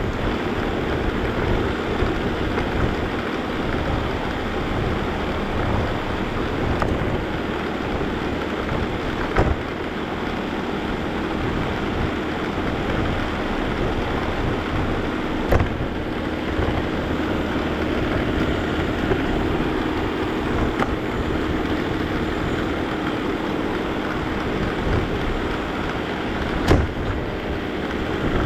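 Vacuum cleaner running steadily: its motor hum under a rushing airflow, with a few sharp clicks or knocks as it is pushed along the floor.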